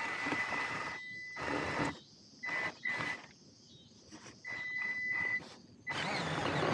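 Electric motor of a Traxxas TRX-4M RC crawler whining in short bursts of throttle as it pushes through long grass, stopping and starting several times with quiet pauses between.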